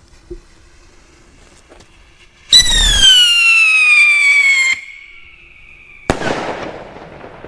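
Whistle-and-bang firework rocket (Thunder Rocket): a loud, shrill whistle as it climbs, slowly falling in pitch, that drops off after about two seconds and fades. Near the end comes one sharp bang, which echoes away.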